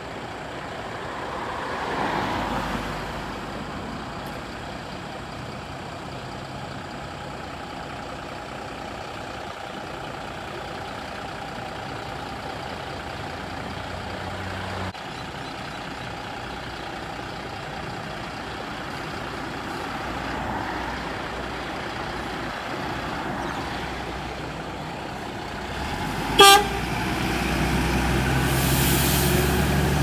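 Diesel engines of fire trucks running as one pulls slowly out of the station, then one short blast of its air horn near the end, followed by the engine growing louder as the truck drives past.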